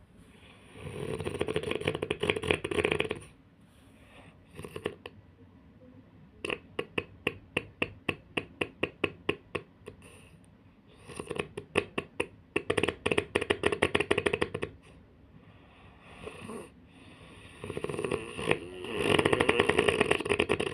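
A person snoring: four snores a few seconds apart, each lasting two to four seconds, one of them a fast rattle.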